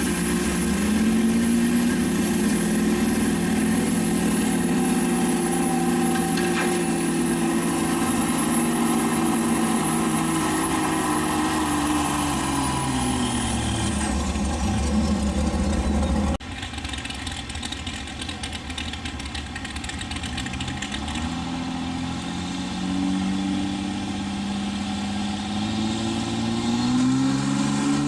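Diesel pickup truck pulling a weight sled at full throttle, the engine held at high revs under a steady high turbo whistle. About 14 seconds in, the revs and the whistle fall away together as the pull ends. After a cut, a second diesel pickup revs up, its pitch rising as it starts down the track with the sled near the end.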